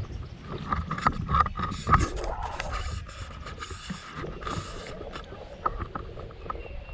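Fishing rod and reel in use while casting and retrieving a lure: scattered clicks and scrapes with an on-and-off whirr, and a couple of brief hissy rushes in the first half.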